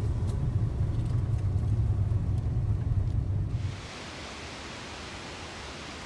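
Wind buffeting the microphone in a steady low rumble, which cuts off about three and a half seconds in to an even, steady rushing hiss, the distant roar of falling water from a waterfall.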